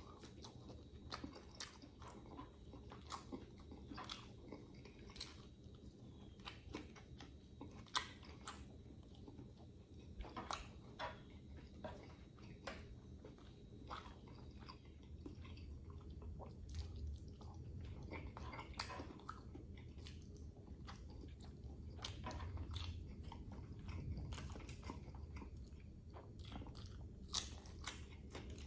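A person chewing and biting food close to the microphone, with irregular crisp crunches over steady chewing, as from grilled chicken, rice and raw vegetables such as lettuce and cucumber.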